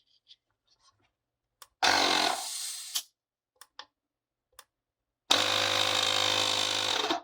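Ryobi cordless compressor's motor and pump, just rebuilt with new bearings, run twice on a test. The first run lasts about a second and ends with a click. The second is a steady hum of about two seconds near the end, and the unit still works.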